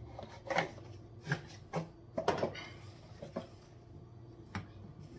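About six scattered clicks and knocks of a kitchen knife and sharpener being handled, short and irregularly spaced.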